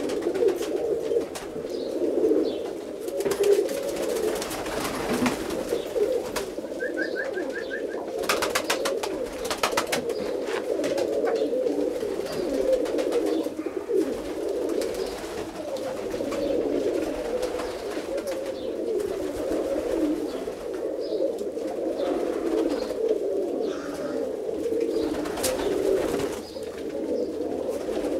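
Many roller pigeons cooing at once in a continuous, overlapping drone. A quick run of sharp clicks comes about eight to ten seconds in.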